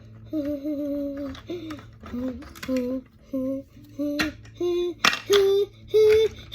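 A child humming or singing a wordless tune: a string of short held notes that climb step by step in pitch. Two sharp clicks come about four and five seconds in.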